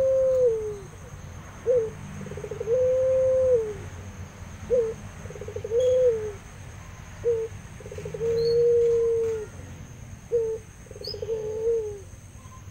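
Puter pelung, a long-cooing Barbary (ringneck) dove, cooing about every three seconds, four full calls in all. Each call is a short note, then a quick rolling stutter, then a long held coo that falls away at its end.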